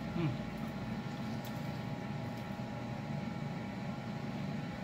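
Steady mechanical room hum with several held tones. About a quarter second in, a man gives one short falling 'hmm' while chewing a bite of burger.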